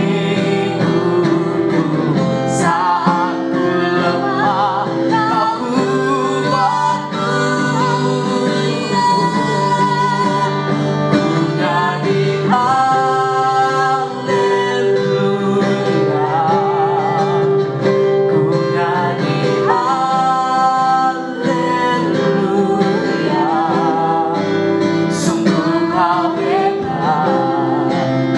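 A song: a voice singing over guitar accompaniment.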